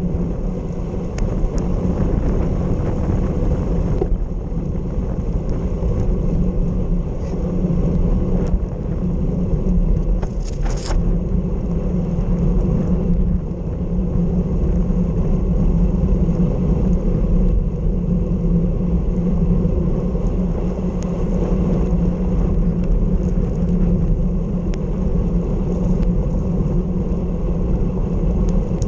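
Wind rushing over the microphone of a bike-mounted camera on a bicycle moving at about 40 km/h, mixed with tyre hiss on a wet road. The noise is steady and low-heavy. A brief higher-pitched sound comes about ten seconds in.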